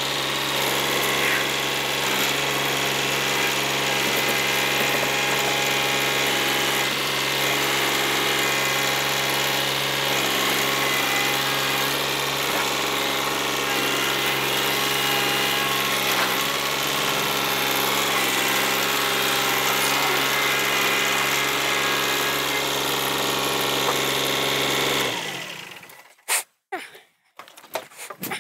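Kioti compact tractor's diesel engine running steadily at an even speed, then cutting out a few seconds before the end, leaving scattered light clicks and rustles.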